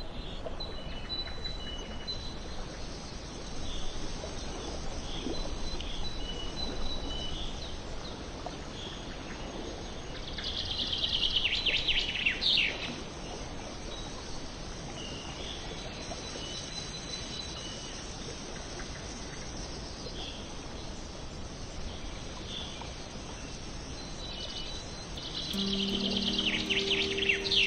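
Birds chirping over a steady background hiss of outdoor ambience, with two louder bursts of falling trilled song, one about ten seconds in and one near the end.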